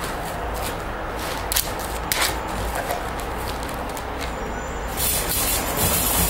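Clear plastic bag crinkling and rustling as a raccoon dog noses through it. Sharp crackles come about one and a half and two seconds in, and thicker rustling in the last second or so.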